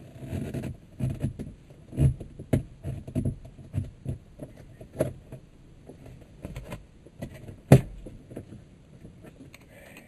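Plastic air-conditioning vent of a Toyota dashboard being worked loose and pulled out by hand: irregular plastic clicks, rattles and knocks, with one sharp knock about three-quarters of the way through.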